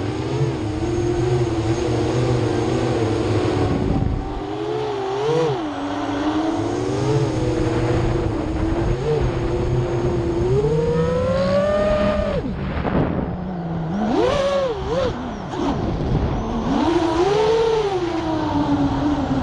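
Brushless motors and 7-inch three-blade propellers of an FPV quadcopter, a whine that rises and falls with the throttle. Its pitch climbs steadily for a couple of seconds near the middle, then drops and jumps in quick punches.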